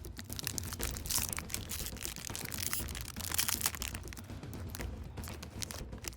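Crinkling and rustling of a Pokémon trading-card booster pack's plastic sleeve and foil wrapper as it is handled and opened, with irregular crackles throughout.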